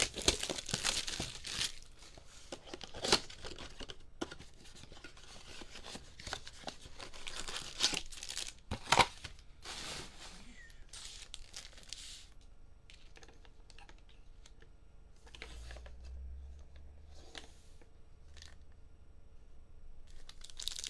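A cardboard trading-card blaster box being torn open, its wrap and flaps tearing and crinkling, then the foil card packs inside rustling and tapping as they are handled. The tearing and crinkling is busiest in the first twelve seconds, then thins to scattered crinkles and taps.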